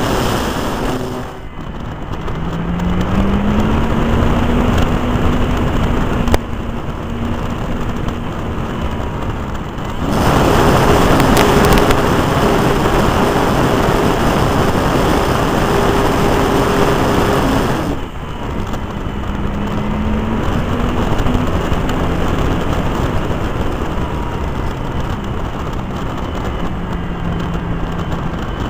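A Zlín light aircraft's piston engine and propeller running in flight under loud rushing airflow. The engine note rises in pitch twice, and the sound shifts abruptly a few times.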